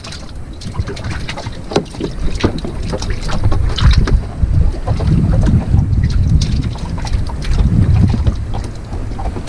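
Wind buffeting the microphone in uneven gusts, with scattered light clicks and knocks.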